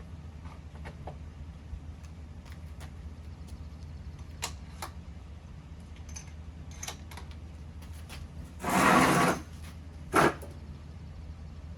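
Small metallic clicks and knocks of a Remington 700 bolt-action .308 rifle and its cartridges being handled and loaded. About nine seconds in there is a loud half-second blast, and a second later a sharp crack.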